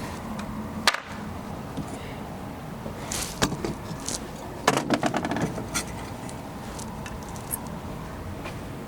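Irregular taps and clinks of small metal tools during goldsmith work on a gold bangle, with a quick run of taps about five seconds in, over a steady low background hum.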